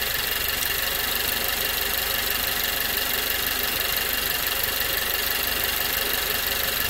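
Nissan Juke Nismo RS's 1.6-litre turbocharged four-cylinder idling steadily, heard close up in the open engine bay.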